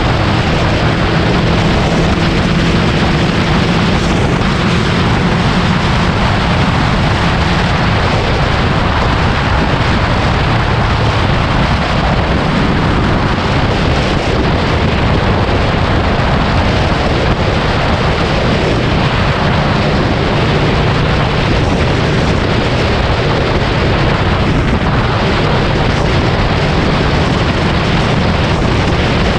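Yamaha VMAX 1700's V4 engine running steadily at highway cruising speed, heavily covered by wind rush buffeting the microphone.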